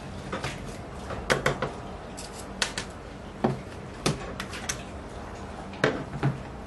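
Irregular light clicks and knocks of plastic and metal as an HP dv8000 laptop is taken apart with a screwdriver, about a dozen sharp taps spread unevenly, over a low steady hum.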